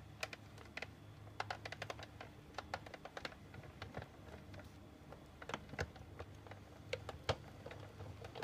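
Sizzix Big Shot manual die-cutting machine cranked by hand, giving irregular light clicks and ticks, some in quick clusters, as the cutting sandwich rolls through the rollers. There is no creaking or cracking: the cutting pads are well used.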